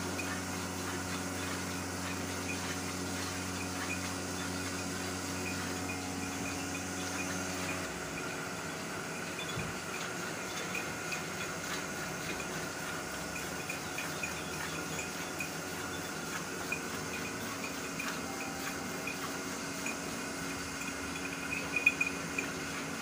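Milk squirting into a pail as a cow is milked by hand, in repeated small spurts. A steady machine hum underneath stops about eight seconds in.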